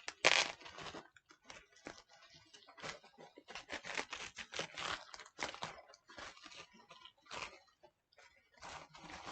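Crinkling and rustling of packaging and a stack of comic books being handled, in irregular bursts with a loud crackle at the start.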